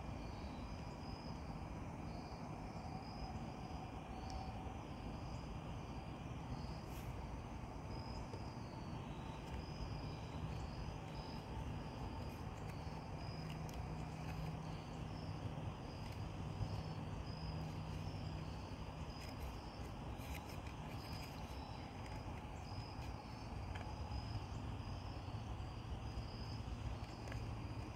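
Insect chorus chirping outdoors in a steady, high, pulsing trill, over a low steady rumble.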